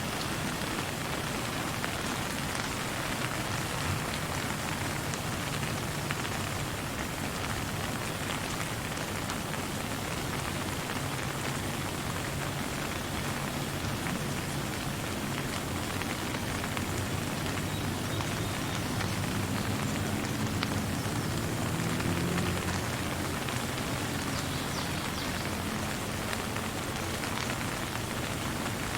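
Steady rain falling, with no thunder.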